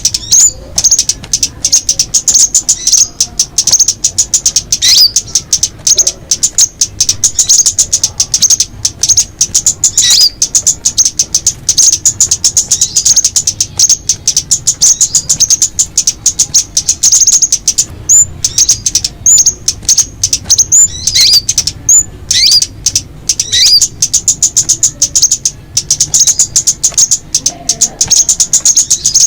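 Birds known in Vietnamese as tía ô and ốc mít calling without pause: a dense, high, very rapid chatter with quick downward-sliding notes here and there.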